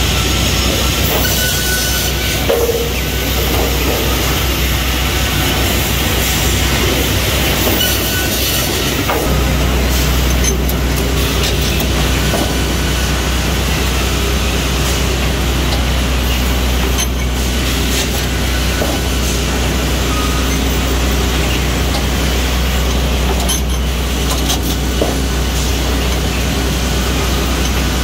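Steady din of an automated multi-rip saw line running: conveyor rollers, feed chains and machinery going continuously. A low hum grows louder about a third of the way in, and there are a few short knocks.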